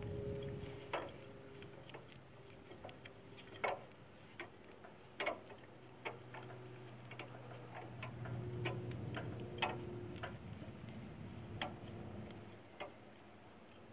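A hand-operated jack being worked to lift a trailer, giving irregular light metal clicks and knocks, a dozen or so spread unevenly over several seconds.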